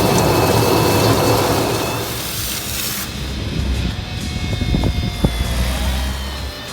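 A motor running with a steady low rumble under background music, with a few sharp knocks about five seconds in.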